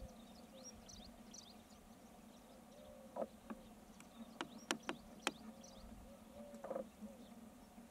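Faint open-country ambience with scattered high bird chirps and a couple of short animal calls, about three and seven seconds in. A few sharp clicks come together about halfway through.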